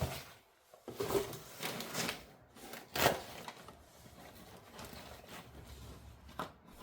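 Parts of a photography light kit being handled and unpacked from their packaging: rustling and rubbing with several sharp knocks, the loudest about three seconds in, then quieter handling.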